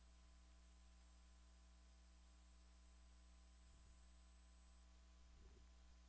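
Near silence: a steady low electrical hum with a faint high-pitched whine that stops about three-quarters of the way through, and a couple of faint soft knocks near the end.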